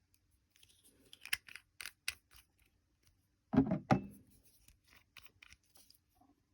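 Crinkling, tearing packaging handled with small clicks and scratches, then a louder double thump a little past halfway.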